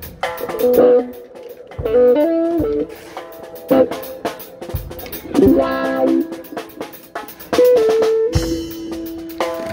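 A song with drum kit and guitar: drum hits under held guitar notes and chords that change every second or so.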